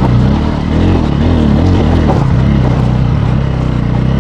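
Bajaj Pulsar N160's single-cylinder engine running at walking pace, its pitch rising and falling as the throttle is worked over rough ground.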